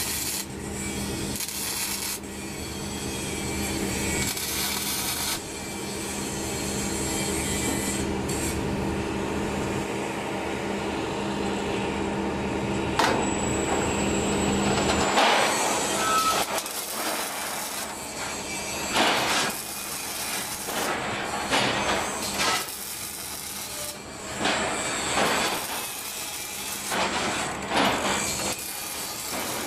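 Rebar cage making machine running: a steady mechanical hum with held tones for about the first half, then repeated scraping and rattling of steel bars for the rest.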